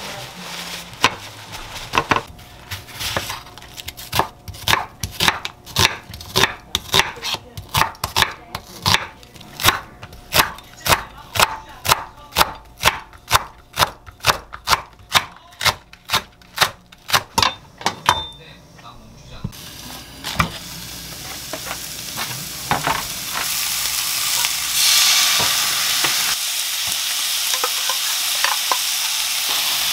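Kitchen knife chopping onion and Korean green onion on a wooden cutting board, steady strokes about two a second, stopping about eighteen seconds in. After a short pause, sliced pork sizzles in a non-stick frying pan, the sizzling growing louder toward the end.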